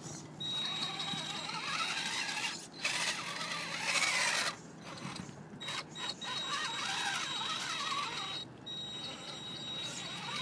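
Electric motor and geared drivetrain of a Traxxas Summit RC rock crawler whining under throttle in low gear as it climbs over rocks, with a steady high whine and a wavering lower gear note. It runs in spurts, stopping briefly a few times, about a quarter, half and four-fifths of the way through.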